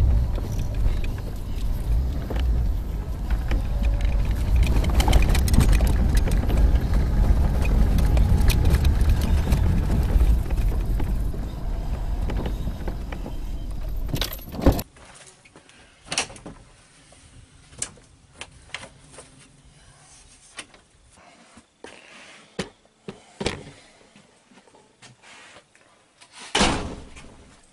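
A loud low rumble with rattling and clicking for about fifteen seconds, cutting off suddenly; then quiet with scattered knocks and clinks of objects being handled, a louder knock near the end.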